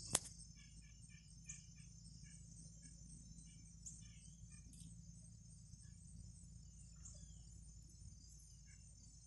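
Faint, steady high-pitched insect chorus of crickets, with scattered soft bird chirps and a single sharp click just after the start.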